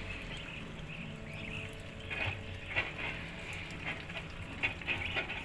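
Muscovy ducklings pecking and dabbling at feed, a patter of quick wet bill clicks that gets busier about two seconds in.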